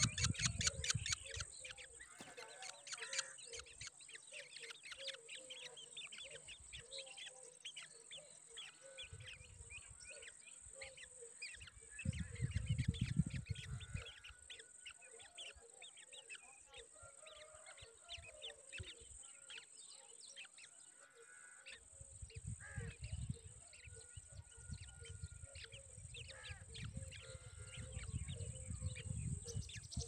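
Drongo nestlings giving rapid, thin, high-pitched begging chirps, many a second and without let-up. A steady high hiss runs behind them, and low rumbles come in about twelve seconds in and again through the last eight seconds.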